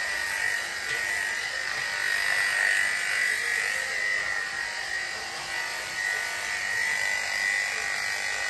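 Corded electric dog grooming clippers fitted with a #5 blade, running with a steady buzz while clipping a long coat down to a short summer length.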